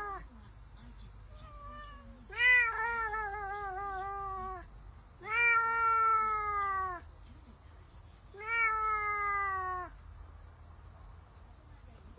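Domestic cat giving three long, drawn-out meows about a second and a half to two seconds each, the first one wavering in pitch, with a few faint short mews before them.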